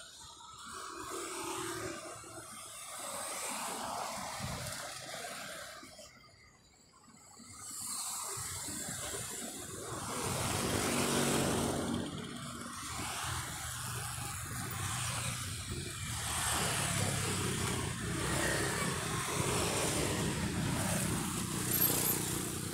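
Street traffic: motor vehicles running and passing by on the road. It drops to a lull about six to eight seconds in, then grows louder from about ten seconds in.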